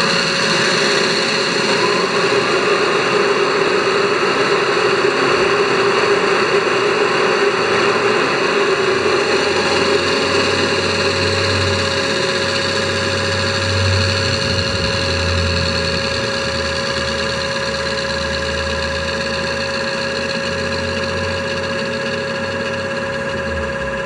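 The traction-motor blower (ventilator) sound of an ESU LokSound XL V4.1 decoder, played through the loudspeaker of an LGB model of the Rhaetian Railway Ge 6/6 I Krokodil standing still: a steady whir with a constant whine. A low rumble joins about ten seconds in and dies away near the end.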